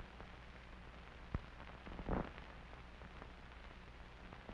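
Quiet soundtrack noise: a steady low hum and hiss with scattered faint crackles and one sharp click about a second and a half in.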